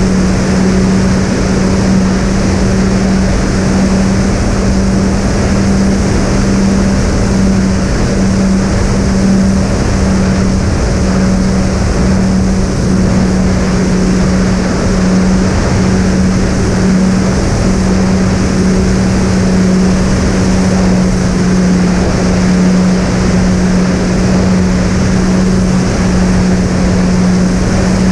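Twin brushless electric motors spinning three-blade propellers on a fixed-wing FPV plane in steady cruise. The motors give a steady hum over constant rushing wind noise.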